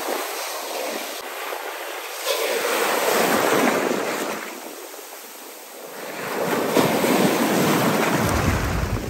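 Ocean surf: waves breaking and washing up the beach, one swelling about two seconds in and fading, another building from about six seconds, with a low rumble near the end.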